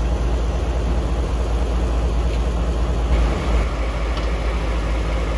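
Diesel locomotive engine idling with a steady low rumble.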